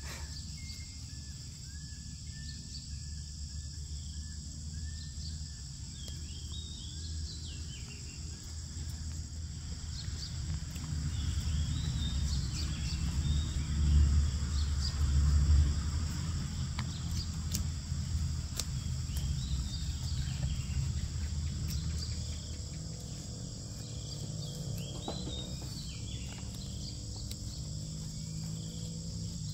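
Rural outdoor ambience: a steady high drone of insects with scattered bird chirps, over a low rumble that swells and is loudest about halfway through.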